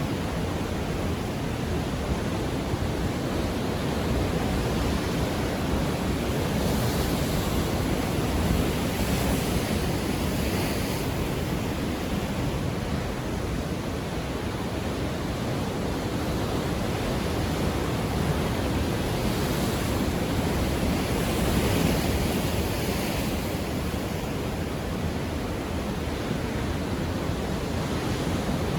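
Ocean waves washing in, a continuous rush of surf whose hiss swells twice and eases again.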